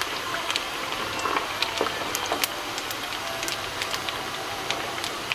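Tofu pieces deep-frying in hot oil in a wire mesh strainer: a steady sizzle with many small crackles and pops.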